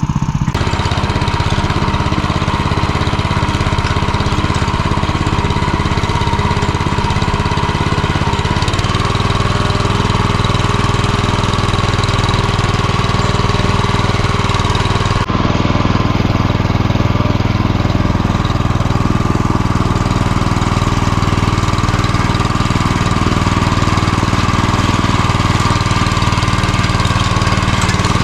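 MTZ-09N walk-behind tractor's single-cylinder petrol engine running steadily as the tractor drives along through grass. Its note shifts about nine seconds in, and there is a sudden break around fifteen seconds in.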